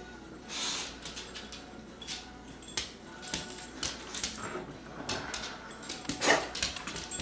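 English bulldog making a series of short, rough, unpitched sounds with small clicks in between, the loudest about six seconds in.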